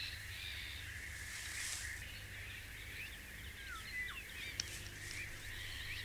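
Faint outdoor ambience of small birds chirping and whistling in the background, with a soft rustle about two seconds in, over a steady low hum.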